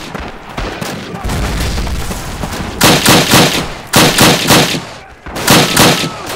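Battle sound effects: a low rumble, then about three seconds in three short bursts of automatic gunfire, roughly a second apart.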